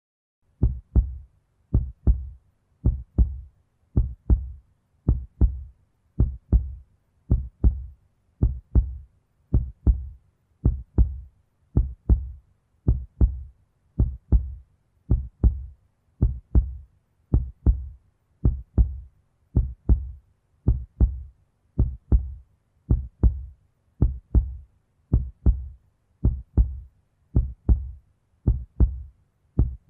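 Heartbeat sound effect: a steady lub-dub of two short, low, close-set thumps, repeating a little under once a second, with silence between beats.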